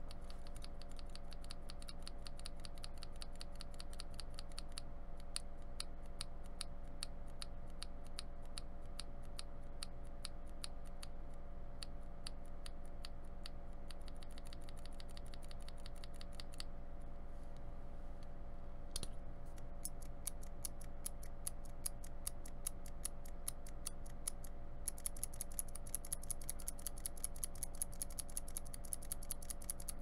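A mechanical keyswitch fitted with a YMDK PBT keycap, pressed rapidly by hand again and again. It makes fast runs of sharp plastic clicks with a few brief pauses.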